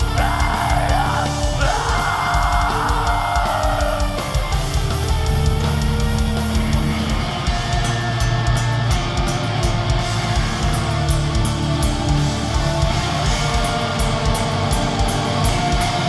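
Live black metal band playing loudly: distorted electric guitars over a drum kit, with fast, evenly spaced drum and cymbal hits from about halfway through.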